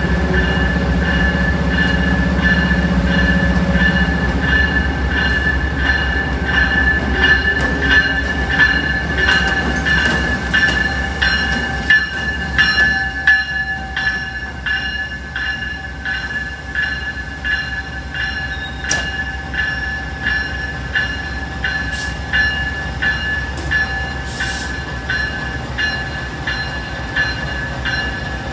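Amtrak ACS-64 electric locomotive rolling slowly past, its bell ringing in steady, even strokes. A low rumble fades over the first few seconds, and a few sharp clicks come in the second half.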